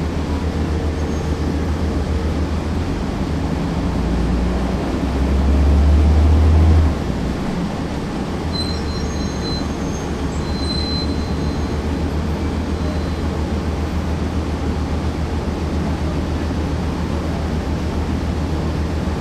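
Cummins ISC inline-six diesel engine of a 1999 Nova Bus RTS, heard from the rear seat right by the engine, running with a steady low drone. It builds louder for a few seconds and then drops off abruptly about seven seconds in, before running on steadily. A few faint high squeaks come in around nine to eleven seconds in.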